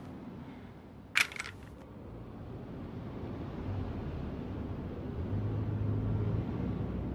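Revolver hammer being cocked: a sharp metallic click about a second in, followed by a low rumbling drone that slowly grows louder.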